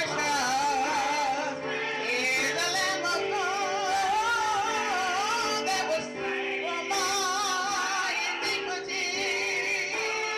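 Church choir singing a gospel song, a lead woman's voice with vibrato carrying the melody over long held instrumental chords.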